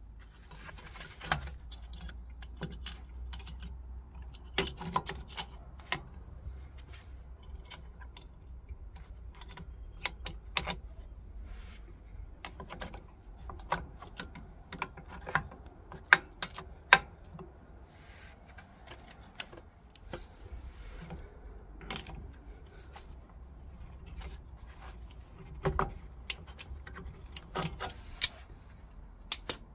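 Irregular metallic clicks and clinks as the steel drum-brake shoes, return springs and adjuster are handled and seated on a rear drum brake backing plate, over a steady low rumble.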